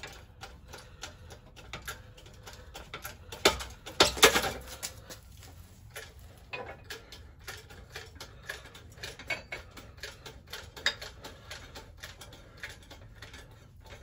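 Vevor hydraulic coil spring compressor being pumped to close up a car coil spring in its cups: irregular metal clicks and ticks, with a louder clatter of knocks about four seconds in as the spring seats.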